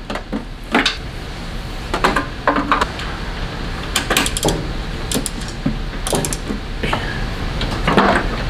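Hand tools clicking and rattling in the air-cooled Volkswagen Beetle engine's bay, with a spark plug socket and ratchet working the plugs: irregular clusters of short metallic clicks and clatters.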